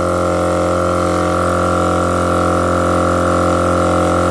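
Battery-powered twin air compressor running steadily under load, a constant droning hum, as it airs up four tires through a manifold toward 36 psi.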